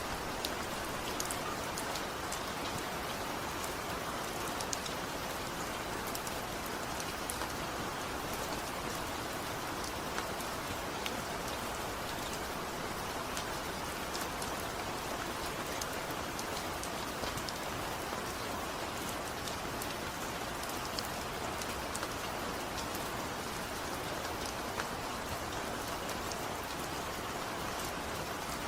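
Heavy rain falling steadily, a dense even hiss with scattered sharper drop splats and no thunder.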